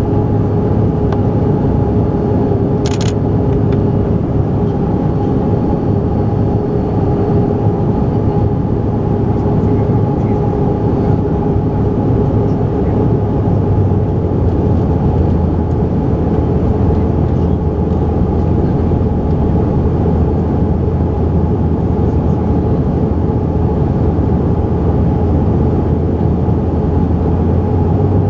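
Cabin noise inside a CRJ700 regional jet, climbing after take-off. The rear-mounted turbofans and the airflow make a loud, steady roar with a low hum and a couple of steady tones in it. There is a brief click about three seconds in.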